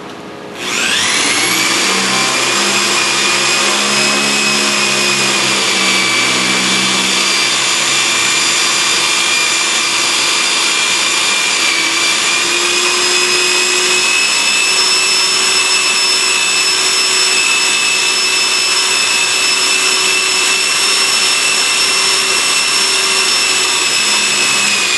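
Corded electric drill boring holes into a metal ceiling plate. It spins up with a quick rising whine about half a second in, then runs at a steady high whine.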